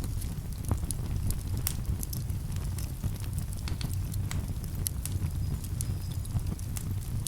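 Campfire wood crackling with irregular sharp pops and snaps, several a second, over a steady low rumble.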